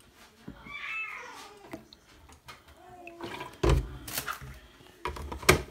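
Knocks and clatter of a plastic milk bottle and a glass being handled and set down on a kitchen worktop, the loudest a sharp knock a little past halfway and a few more near the end. Two short high-pitched vocal calls come earlier, about a second in and about three seconds in.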